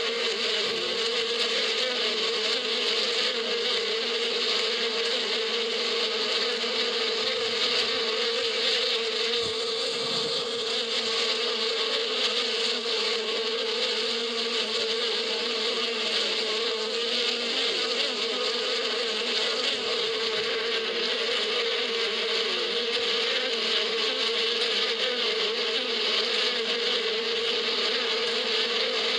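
A mass of honeybees flying around their hive, making a dense, steady buzzing hum that holds unchanged throughout.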